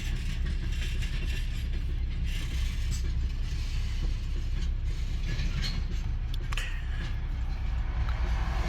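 Freight train wagons rolling along the rails: a steady low rumble with scattered clicks, clanks and brief squeals from wheels and couplings.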